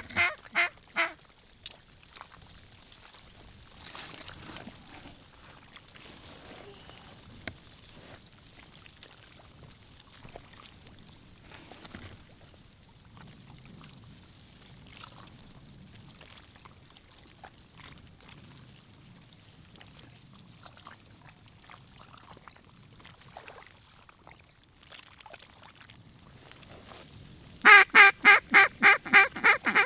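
Mallard quacking: a short burst of quacks at the start, then a long quiet stretch, then a loud, rapid run of about nine quacks near the end, roughly four a second.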